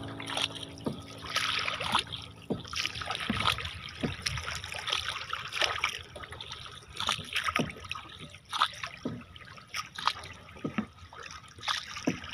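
Paddle strokes of a small outrigger canoe: a hand paddle dipping and pulling through calm water, with irregular splashes and drips over a steady wash of moving water.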